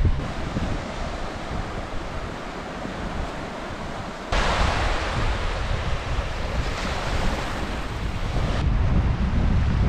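Small sea waves lapping and washing up a sandy, pebbly shore, with wind buffeting the microphone. The hiss of the wash turns suddenly louder about four seconds in and drops back about four seconds later.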